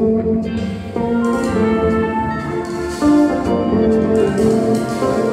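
Big band playing jazz live: horn section over guitar, bass, piano and drum kit, with a loud ensemble accent about three seconds in.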